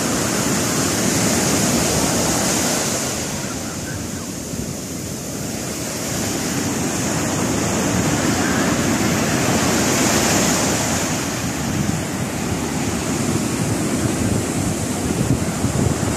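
Sea surf breaking and washing up a sandy beach, a steady rush that dips a few seconds in and then builds again as the next waves come in.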